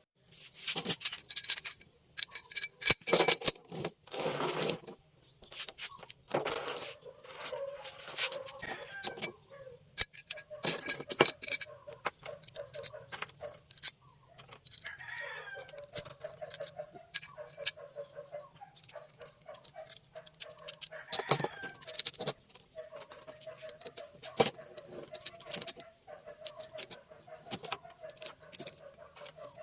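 Steel parts and tools clinking, knocking and clattering as they are handled, some strikes ringing. A faint wavering tone runs through the second half.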